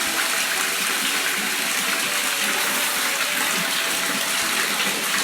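Water running steadily, a continuous even gush, as from a tap or hose at a poultry-processing table.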